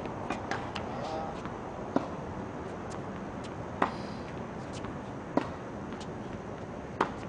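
Tennis ball being struck by rackets and bouncing on a hard court during a rally: sharp pops about every one and a half to two seconds, with fainter knocks between them.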